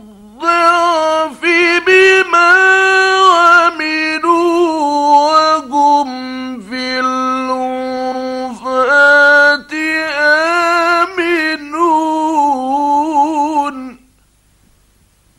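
A man's voice reciting the Quran in the drawn-out, melodic mujawwad style, holding and ornamenting long notes that slide up and down in pitch with short breaks between phrases. It stops about fourteen seconds in.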